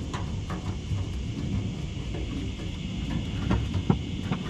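A few light knocks and clunks from fitting a fuel tank under a car, over a steady low rumble. The sharpest knock comes near the end.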